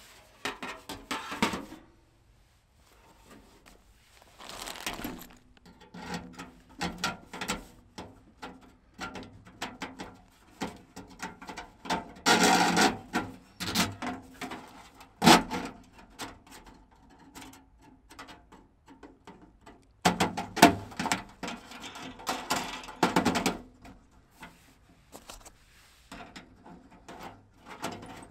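Thin titanium tent-stove panels and pins being handled and fitted together: irregular metallic clinks, scrapes and rattles. There are louder stretches of clattering near the middle and again about two-thirds through, with one sharp clack between them.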